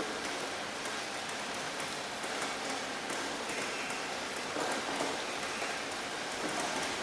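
Steady rain falling, a dense even hiss with many small drops pattering on a surface.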